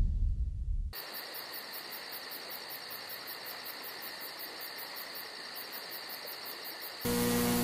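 Crickets chirping at night in a fast, even rhythm of about five chirps a second over a steady hiss, starting about a second in as a low rumble fades. Near the end an electrical hum with static cuts in suddenly.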